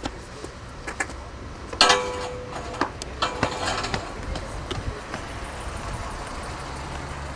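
Skateboard clattering on brick steps: a loud clack about two seconds in with a short ring after it, then a run of lighter knocks. A low vehicle engine hum comes up near the end.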